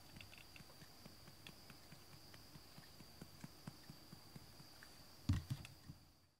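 Faint soft ticks and rustling, about four or five a second and uneven, from fingers scratching a cat's fur close to the microphone, over a steady faint high whine. A single louder thump comes about five seconds in, and the sound then fades out.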